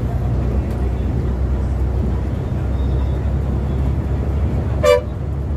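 Volvo B7R coach's inline-six diesel engine and road noise droning steadily inside the cab at highway speed, with one short horn blast near the end.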